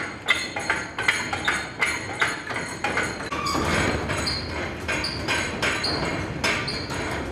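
Metallic clicking and clanking, about three sharp strokes a second, from the loft roof's cable winch and roof gear being worked. From about halfway through, short high squeaks join in over a steadier running noise.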